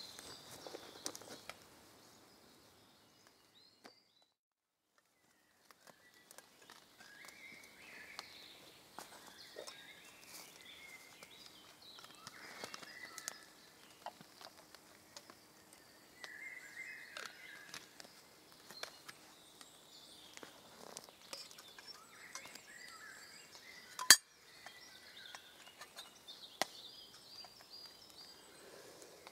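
Woodland birds singing and calling, with scattered light clinks and one sharp click about 24 seconds in. The sound drops out for about two seconds near the start.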